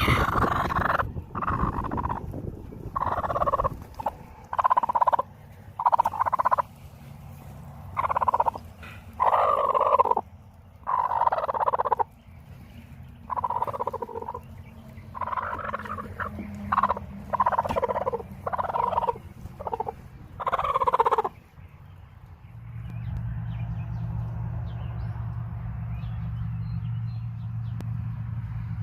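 A long series of short, rattling animal calls, about one a second, each under a second long. They stop about two-thirds of the way through and a steady low hum takes over.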